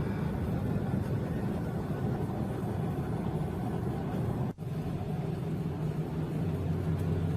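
Car engine and road noise heard from inside the car while driving: a steady low hum with a brief sudden break about four and a half seconds in.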